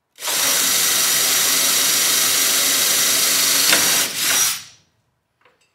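Bosch cordless drill running steadily at speed as it drills a hole through the sheet-metal mounting plate and channel, then a short second burst before it stops.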